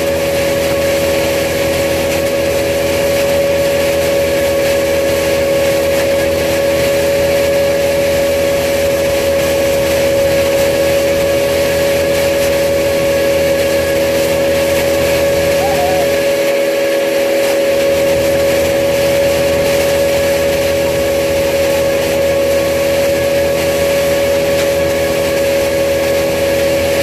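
Wood chipper's engine running steadily at a constant speed, a loud, unchanging drone with a strong hum.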